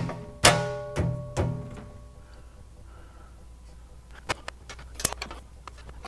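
Background music: a few plucked low string notes that ring out and fade over the first two seconds. Then a few light, sharp clicks and taps.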